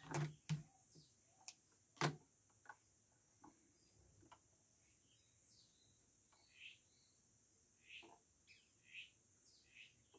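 A few light clicks and knocks in the first two seconds as the sewing machine is handled during threading. Then faint short bird chirps repeat about once a second in the background.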